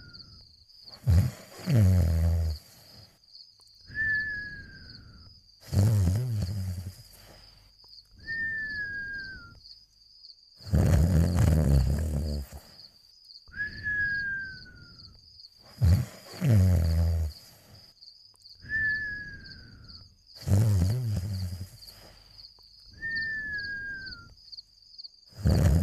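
Cartoon snoring, repeating about every five seconds: a loud, rough, rumbling snore on the in-breath, then a thin whistle that falls in pitch on the out-breath.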